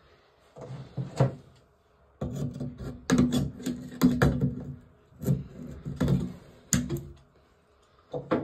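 Metal sink drain flange being wrenched around with pliers, scraping and creaking in three spells as the stuck flange is turned loose on its threads.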